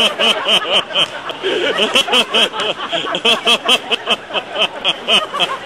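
Spectators laughing, several voices overlapping in quick, repeated high-pitched laughs, with some chatter mixed in.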